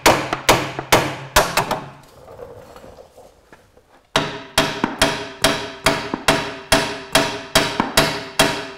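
Hammer blows on the steel steering linkage of a Series III Land Rover, about two to three strikes a second, knocking a track rod end loose. The blows stop for about two seconds midway, then resume steadily with a metallic ring.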